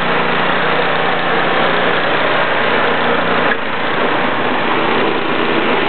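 Ariens 8 hp snowblower's single-cylinder engine running steadily as the machine throws snow. About three and a half seconds in, the sound shifts abruptly and the low hum drops away.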